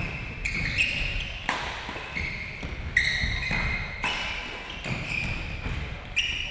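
Badminton doubles rally: rackets striking the shuttlecock with sharp pops about a second apart, and sports shoes squeaking on the hall floor between hits.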